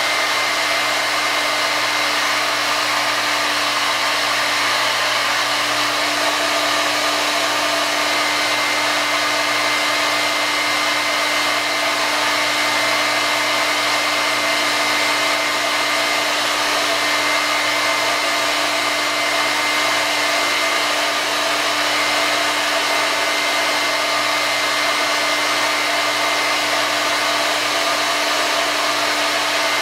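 Hair dryer running steadily at a constant motor speed, blowing air along the tube, with its intake partly choked by hand to set the airflow. A steady hum sits under the blowing, and a faint high whistle comes and goes.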